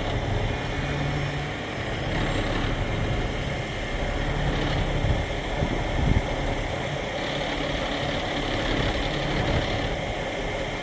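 Crane truck's engine running steadily with the PTO engaged, powering the crane while its cable is lowered. A brief low knock about six seconds in.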